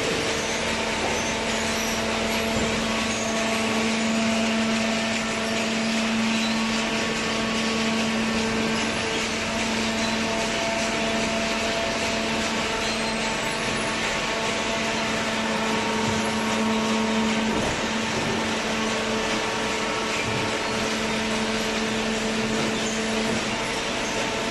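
Automatic hydraulic waste-paper baler running: a steady machine hiss with a constant hum of several tones from the hydraulic pump motor, the lowest hum tone dropping away near the end.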